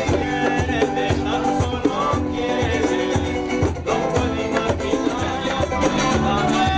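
Live Andean folk music: an acoustic guitar and a small strummed stringed instrument over bongos keeping a steady beat.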